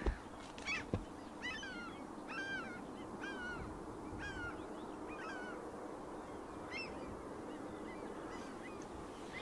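Geese honking in a loose series of short calls, about two a second at first, then thinning out after about five seconds, over a steady outdoor background. Two sharp knocks come right at the start and about a second in.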